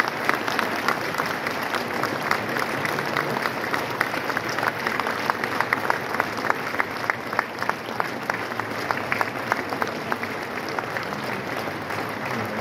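Large crowd applauding: a steady mass of clapping with sharp individual claps close by, easing a little near the end.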